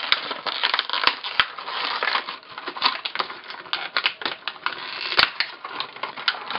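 Stiff clear plastic packaging crinkling and crackling as hands twist and pry it open: a dense, continuous run of crackles with a few sharper clicks.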